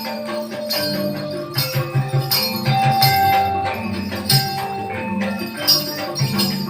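Gamelan music accompanying the Remo dance: pitched metal notes over a low melody, with sharp rhythmic strokes and jingling bells.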